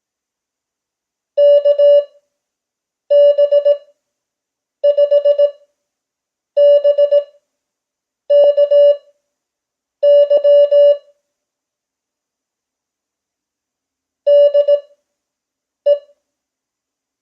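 Morse code (CW) practice tone sent at 5 words per minute with Farnsworth spacing: each letter is keyed fast as a quick run of short and long beeps on one steady mid-pitched tone, followed by a long silent gap before the next letter. Eight letters sound, with a longer pause between the sixth and seventh that marks a word space.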